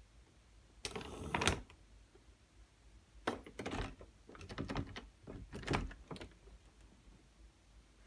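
Clattering and knocking from a motorized rack-and-pinion door lock and the door it bolts: a one-second burst of rattling about a second in, then three clusters of knocks and clatters between about three and six seconds in.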